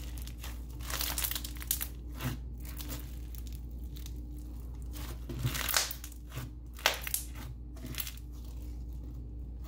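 Rubbery floam slime packed with foam beads being squeezed and stretched by hand, giving irregular crackles, pops and small tearing sounds as the beads crunch and the stiff slime rips.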